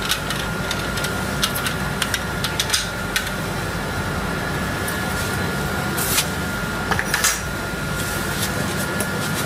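Scattered metallic clicks and clinks as a round metal ring and fittings are worked loose and lifted out of the heating-element opening of an electric storage water heater, with a few louder clinks about six to seven seconds in. A steady background hum runs underneath.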